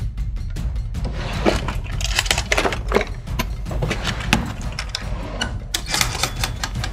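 Wooden dresser drawer pulled open and clothes rummaged through, with a run of small knocks, rattles and rustles, over a low steady rumble.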